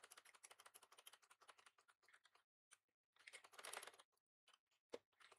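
Faint domestic sewing machine stitching: a fast, even run of needle clicks, a short pause, then a second, louder burst of stitching and a single click near the end.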